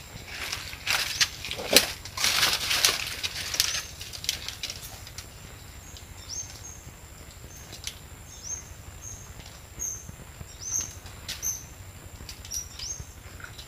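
Dry palm fronds and brush rustling and crackling as someone moves through them, loudest in the first few seconds. Later come short high chirps that fall in pitch, about ten of them.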